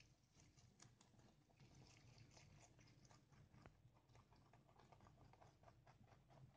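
Two rabbits chewing fresh leafy greens such as spinach and kale. The crunching is faint, quick and irregular, made of many small clicks.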